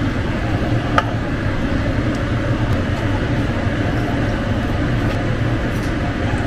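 Steady low hum and rush of a running kitchen appliance, with a single light click about a second in.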